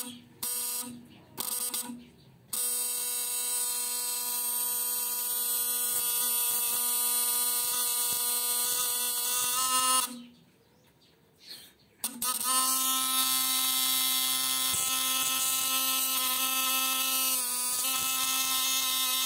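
Homemade battery-powered high-voltage inverter with a hand-wound step-up transformer, buzzing loudly while its output arcs at a spark gap, with a high sizzle over the buzz. It pulses on and off a few times at first, then runs steadily, cuts out for about two seconds in the middle, and starts again.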